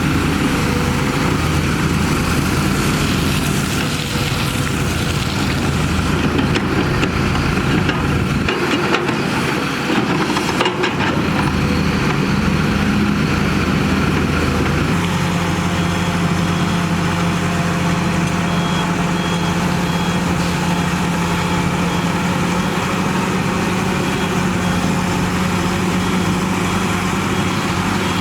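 Heavy diesel construction machinery running steadily, with a few knocks partway through. In the second half a reversing alarm beeps faintly.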